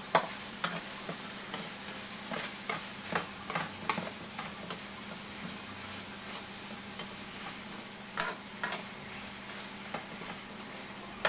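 Metal ladle scraping and clinking against a metal wok while stirring and mashing sautéed tomatoes and onions, over a low steady sizzle. The clinks come irregularly, bunched in the first few seconds, with the loudest pair about eight seconds in.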